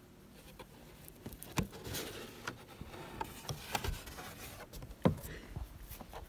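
Cardboard cake box being handled and its lid opened: scattered taps, rubbing and scraping of cardboard, with the sharpest knock about five seconds in.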